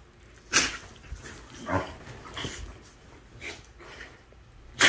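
Dogs play-wrestling, giving short, separate vocal sounds about once a second, with the loudest one near the end.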